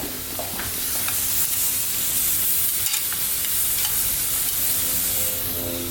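Steak sizzling in a hot frying pan: a steady hiss that grows louder about a second in and eases near the end, with a few faint clicks.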